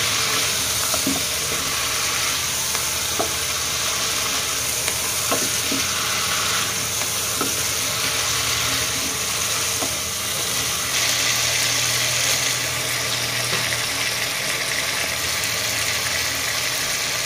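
Sweet pumpkin cubes sizzling in hot oil and spice paste in a nonstick pot, turned over with a wooden spatula: a steady frying hiss with a few light spatula taps. The pumpkin is being dry-fried without water, at the stage where the oil has separated from the spices.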